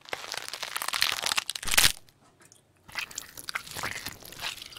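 Loud crunching and chewing of a candy bitten in the mouth, in two runs with a pause of about a second between them; the first run ends in one sharp, loudest crunch.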